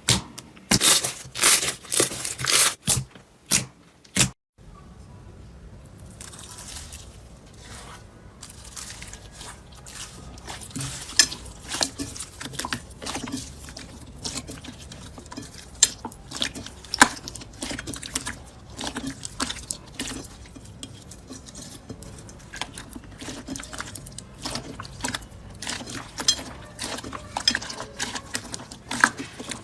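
Slime being squeezed and poked by hand. For about the first four seconds there is a run of loud crackles; after a short silence comes a quieter, steady stream of small clicks and pops.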